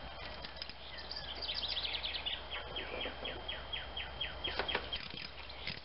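Quarter-inch-drive ratchet clicking in short, light ticks, settling into an even run of about four clicks a second as 8 mm valve-cover bolts are worked loose.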